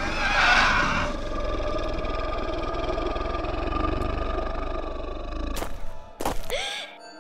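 Big-cat growl sound effect for a shadowy panther-like creature: a loud roar in the first second, then a long low rumbling growl over a sustained dark music drone. Two sharp hits come near the end.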